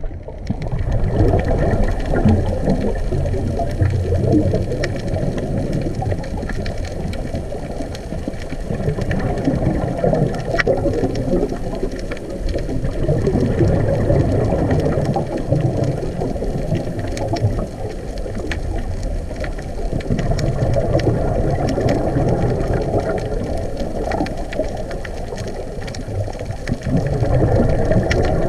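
Muffled underwater noise picked up through a dive camera's housing: a scuba diver's exhaled bubbles rumbling in slow surges every few seconds, with a few faint clicks.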